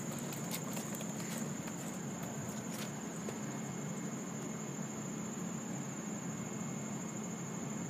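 Steady high-pitched drone of insects such as crickets over a low steady background hum, with a few faint clicks in the first three seconds.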